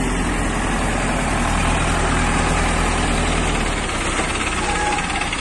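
Heavy diesel engine of an earth-moving machine running steadily. Its low note changes about four seconds in.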